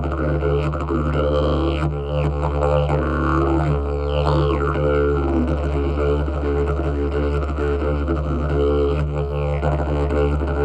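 Long didgeridoo played as a continuous low drone, with rhythmic shifting overtones shaped by the player's mouth and breath.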